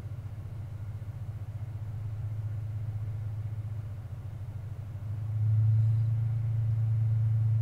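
A steady low machine hum, which gets louder about five seconds in.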